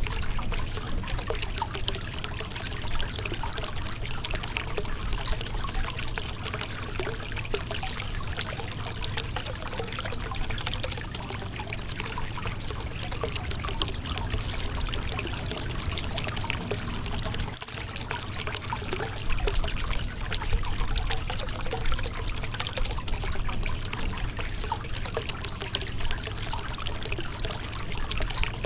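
Shallow river water running and splashing over a rocky bed, a continuous trickling and pouring rush with small bubbling splashes.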